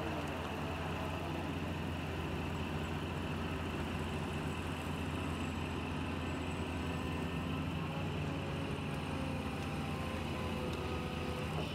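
Steady low mechanical hum, like a running motor, that holds even and unchanging throughout.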